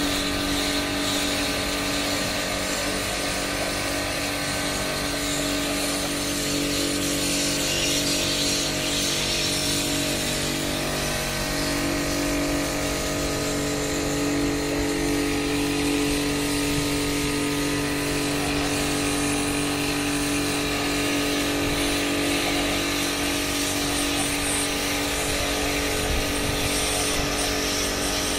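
Pressure washer running steadily: an even motor hum with the hiss of its high-pressure water jet spraying the steel roof sheets.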